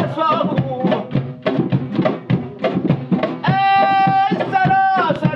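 Folk song: a hand drum playing a quick, steady rhythm, with a singer holding two long notes about two-thirds of the way through.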